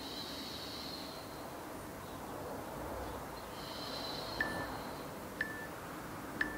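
Soft breathing of someone exercising. Near the end a workout interval timer gives three short beeps about a second apart, counting down the end of the exercise interval.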